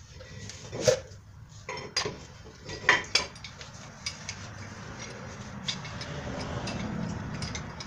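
Metal clinks and clanks as a C-clamp and an old brake pad are worked against the pistons of a 2003 GMC Yukon Denali XL rear brake caliper, ready to compress them. A few sharp knocks come in the first three seconds, then a quieter run of small ticks.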